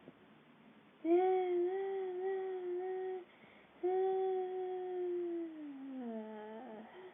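A person's voice humming or vocalising two long, held notes, the second sliding down in pitch near the end.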